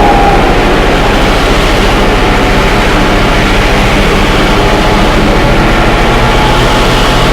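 Train running steadily: a loud, continuous rumble and hiss with a constant low hum and a few faint whining tones.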